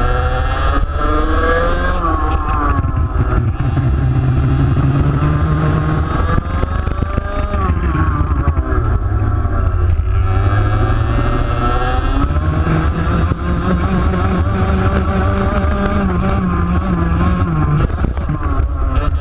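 Onboard sound of a TaG Senior racing kart's 125cc two-stroke engine at racing speed. Its pitch climbs as it accelerates and drops away several times as it slows for corners.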